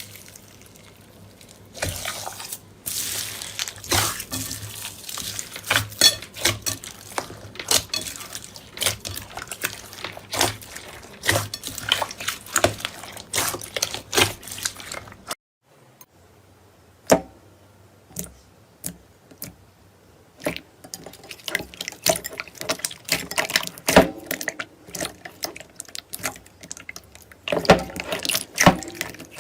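Slime being squished and pressed by hand, making many wet clicks and pops, with a brief pause about halfway through.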